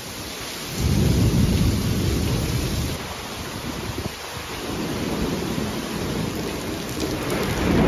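Heavy rain pouring down in a steady hiss, with thunder rumbling loudly about a second in and building again near the end.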